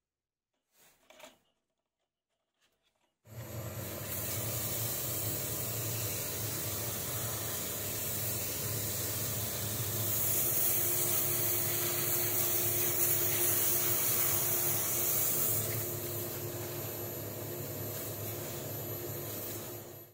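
Wood lathe running steadily with the walnut bowl spinning in its chuck, and a hiss of something rubbing on the spinning wood that is loudest in the middle. It starts abruptly about three seconds in and cuts off suddenly at the end.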